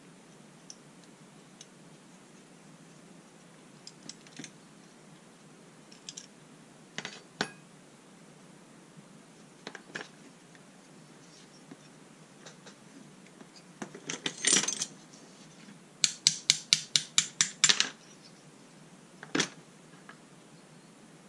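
Small steel parts of an old spring balance clicking and clinking as it is taken apart by hand: scattered light clicks, a rattle about two-thirds of the way through, then a quick run of about ten sharp metallic taps, some five a second.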